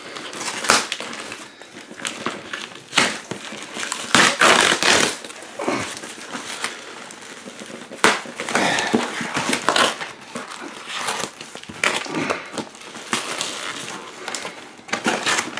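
Cardboard shipping box being torn open by hand, its flaps ripped back, with tissue paper crinkling inside. The sound comes in irregular bursts of tearing and rustling.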